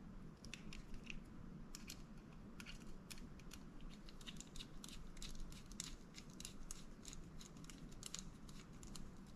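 Faint, irregular small clicks and ticks of a precision screwdriver turning the little side-cover screws into a Shimano Curado MGL 151 baitcasting reel.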